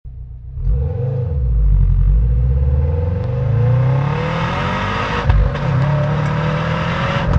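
Subaru WRX exhaust heard right at the tailpipes as the car pulls away and accelerates. The engine pitch climbs and drops several times as it runs through the gears, with a brief break about five seconds in.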